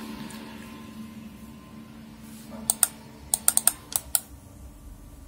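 Clicking at a computer: about eight sharp plastic clicks in quick succession, starting about halfway through, over a faint steady hum. The clicks are presses on a frozen randomizer page that won't respond.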